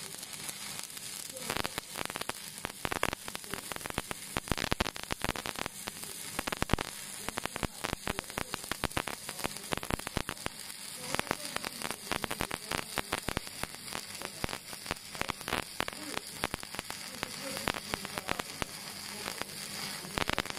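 Stick (SMAW) welding arc with a 6013 electrode: a steady sizzling hiss packed with irregular crackles and spatter pops as the rod burns along the weld.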